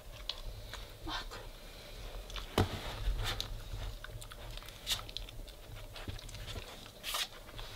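Weimaraner puppy nosing and chewing at the base of a plastic treat-dispensing puzzle toy, going after pieces of boiled chicken. Scattered light clicks and knocks come at irregular times, the sharpest about two and a half seconds in and near the end.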